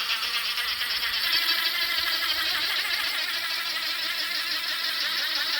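DeWalt 20-volt brushless impact driver running steadily, spinning a scrub brush against a toilet bowl: a continuous motor whir mixed with brush-scrubbing noise.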